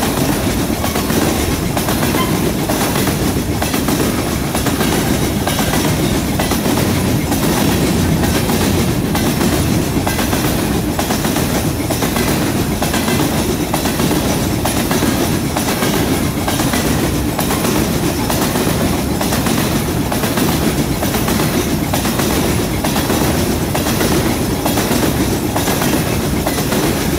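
Covered hopper cars of a long freight train rolling past close by: a steady rumble of steel wheels on rail with a regular clickety-clack.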